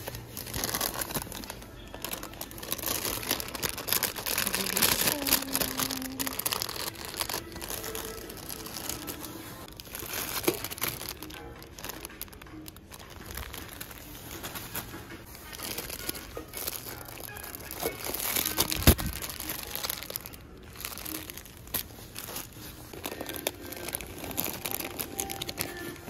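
Crinkling and rustling of handled material, such as plastic bags or packaging, with many small irregular clicks and a single sharper knock past the middle. Music plays faintly underneath.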